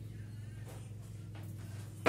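A steady low electrical hum, with a few faint clicks of handling about a second apart.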